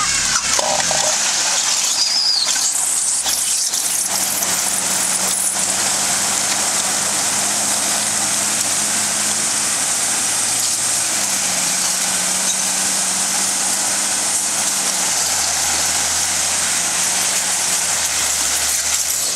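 Nissan Patrol 4x4 engines working under load while one Patrol tows another out of muddy water on a strap, with water churning and splashing around the turning wheels. The engine note comes in about four seconds in and shifts pitch a couple of times as the stuck vehicle starts moving.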